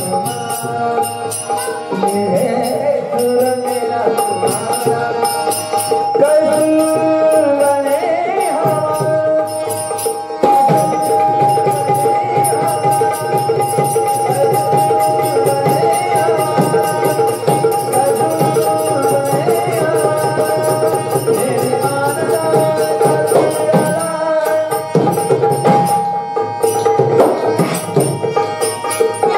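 Marathi gaulan devotional song: a voice singing a melody over a steady held drone, with tabla and a regular jingling of small percussion keeping the beat.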